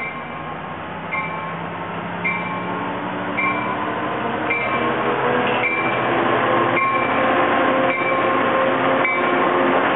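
Amtrak California passenger train, led by an F59PHI diesel locomotive, running past a station platform, its rumble growing louder as it draws level and the cars go by. A bell rings about once a second through most of it.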